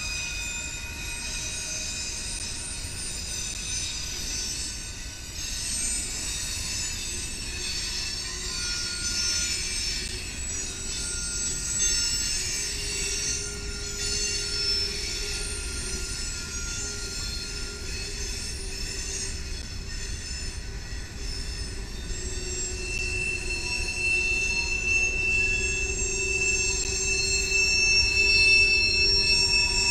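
Freight train cars rolling past, their steel wheels squealing in several steady high-pitched tones over a low rumble. One shrill squeal grows louder over the last third.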